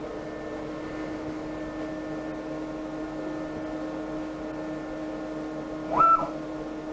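Steady hum from the powered 6040 CNC router during a Z-height touch-off. About six seconds in, the Z-axis stepper motor gives a brief whine that rises in pitch, holds and cuts off as the spindle quickly retracts from the tool setter.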